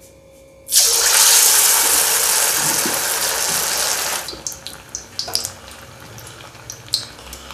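A piece of marinated chicken kabab dropped into hot oil in a kadai: a loud hiss of deep-frying starts suddenly about a second in, then after about three seconds settles into a quieter crackle and spatter. It is a test piece, and the fierce sizzle shows the oil is hot enough to fry.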